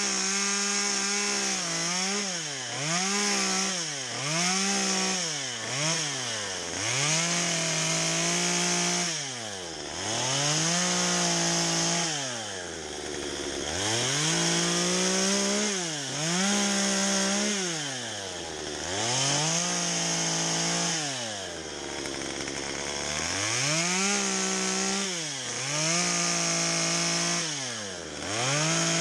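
Stihl two-stroke chainsaw carving into a log, revved to full throttle in bursts of one to three seconds and dropping back toward idle between cuts, about a dozen times over.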